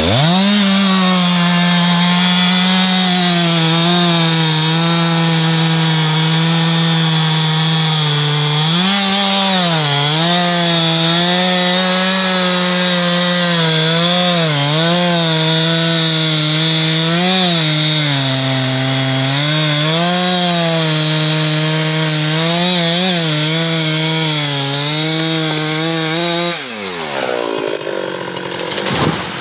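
Husqvarna 390XP two-stroke chainsaw with a Stihl .404 chain, revved up to full throttle and cutting into a teak trunk. Its pitch dips and recovers over and over as the chain loads in the wood, then falls back to idle near the end.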